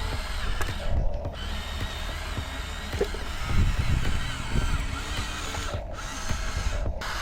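Small electric motor whirring steadily, like the hydraulic pump of a hydraulic RC excavator at work.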